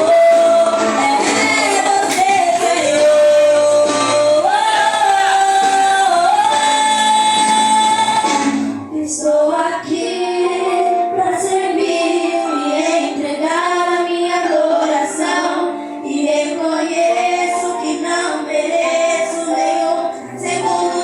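A worship song with a woman singing over the band: long held notes that step up in pitch, then after a short break about nine seconds in, the singing goes on in quicker phrases.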